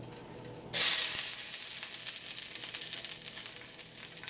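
Garlic dropped into a very hot cast iron pan, starting to sizzle suddenly about a second in, loudest at first and then settling into a steady frying sizzle.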